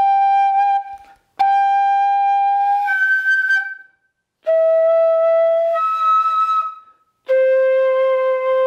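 Bamboo pífano (Brazilian transverse fife) playing long held notes. Twice a note jumps up an octave into the second octave partway through as more air is blown into it. Each new note starts lower than the one before, and the last, lowest note begins near the end.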